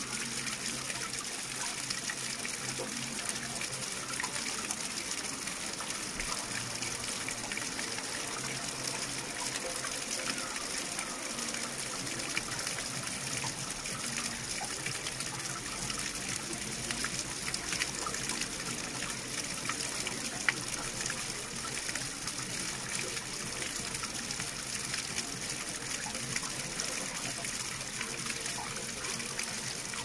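Water flowing in a steady, unbroken hiss, with scattered small ticks and one sharper click about twenty seconds in.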